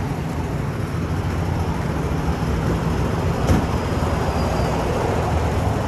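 Steady low rumble of an idling truck engine mixed with wind buffeting the microphone, with one sharp knock about three and a half seconds in.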